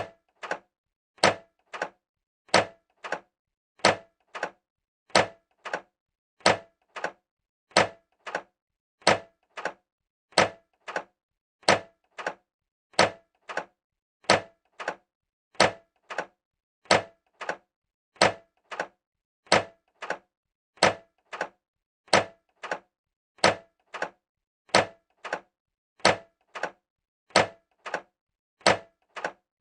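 Microwave oven door being opened again and again: each time a sharp latch click followed by a softer second click, the pair repeating evenly about every 1.3 seconds.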